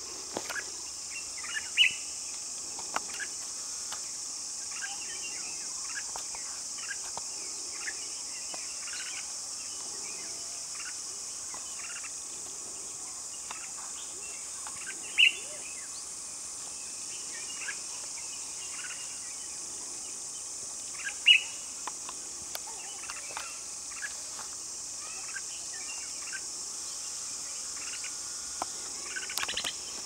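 Red-whiskered bulbuls calling in short, scattered chirps, with a few louder notes near the start, about halfway and about two-thirds through. A steady high insect drone runs under the calls.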